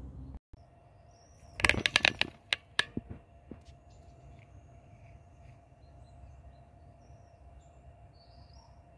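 A quick run of sharp clicks and crackles lasting about a second, then quiet outdoor background with a faint steady hum and a few faint bird chirps.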